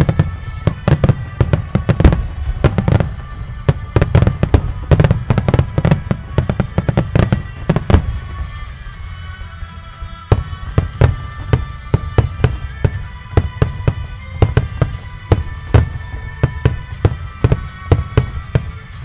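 Wide starmine fireworks: volley after volley of aerial shells bursting, booms following one another several times a second with deep low rumble. The volleys thin out briefly about halfway through, then pick up again.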